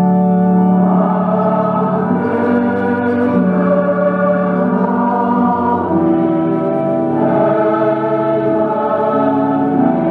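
Church congregation singing slowly with organ accompaniment, long held notes that change pitch every second or two.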